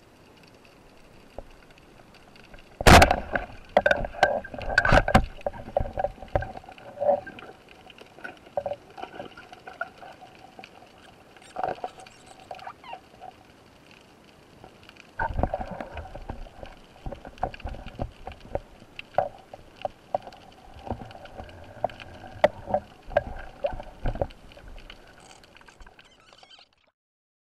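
Water sounds with irregular knocks and clicks, likely handling noise from a camera underwater during a spearfishing dive. The loudest knock comes about three seconds in, and the sound cuts off suddenly shortly before the end.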